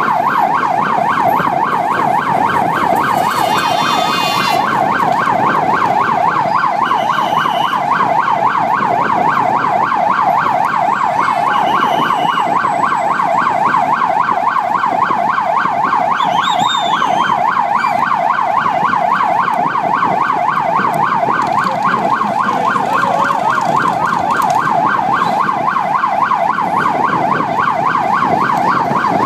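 Electronic vehicle siren in a fast yelp, its pitch swinging rapidly up and down several times a second without a break, loud and close, over a low rumble of vehicle and road noise.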